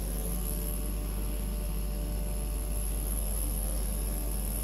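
Electric microneedling pen buzzing steadily as it works over the scalp.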